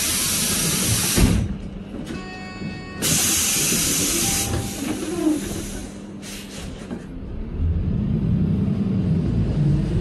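City bus standing still with its compressed-air system giving two long loud hisses, with a short electronic tone in between and a brief puff of air later. From about three-quarters of the way in, the bus engine's low rumble rises as the bus pulls away.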